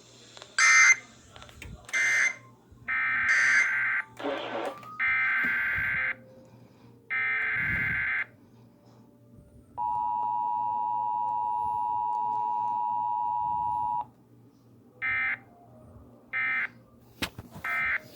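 Emergency Alert System broadcast tones. Several bursts of warbling SAME digital header data come first, then the two-tone attention signal held steady for about four seconds, then three short data bursts, the end-of-message code.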